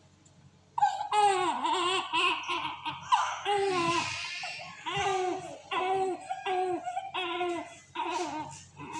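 Newborn baby crying, starting about a second in: a long wail, then a string of short, rhythmic cries toward the end.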